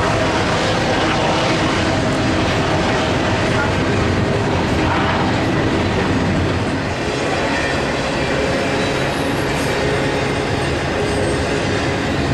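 Intermodal freight train passing close by: its well cars rolling over the rails with a steady rumble of steel wheels on track.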